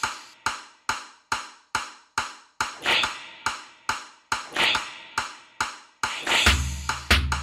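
Trap beat: a sharp tick a little more than twice a second, with a clap-like swell on every fourth tick. A deep, booming bass comes in about six and a half seconds in.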